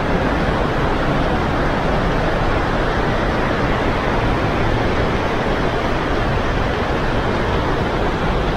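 La Fortuna waterfall, a steady, loud rush of falling water with no pauses or changes.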